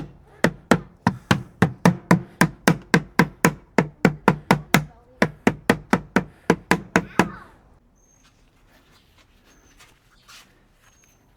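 Rapid, even hard knocks, about three or four a second, as the small mesh air-relief screen of a cartridge pool filter is tapped against a hard surface to knock the dirt out of it; they stop about seven seconds in.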